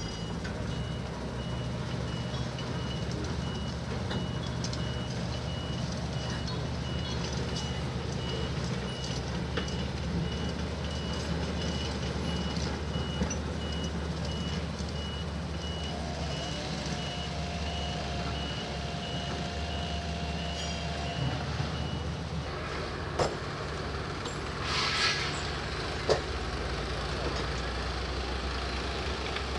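A heavy diesel machine's engine running with its reversing alarm beeping in a steady, evenly spaced series. The beeping stops about two-thirds of the way through. After it come two sharp metallic knocks and a short hiss.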